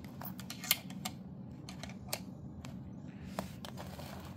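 A handful of light, sharp clicks and taps as a pen-style soldering iron is handled and set into its ring holder in a plastic case. The loudest click comes a little under a second in.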